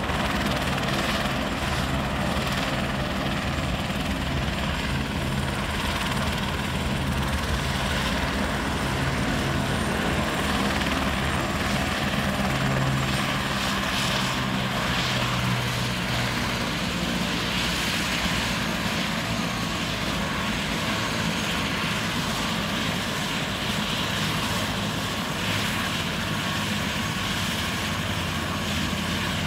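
Helicopter running on the ground after landing, its turbine engine and rotor giving a steady drone. A low hum within it weakens about halfway through.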